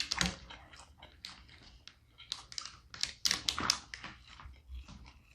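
Snow crab leg shells being cracked and snapped apart by hand: a run of sharp crackling clicks, densest about three seconds in.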